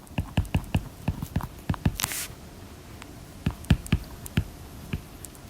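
Computer keyboard typing: irregular key clicks several times a second, with a brief louder rustle about two seconds in.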